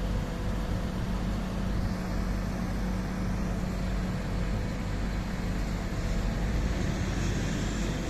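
MAN truck engine of a Schwing Stetter truck-mounted concrete boom pump running steadily, driving the hydraulics as the boom is lowered.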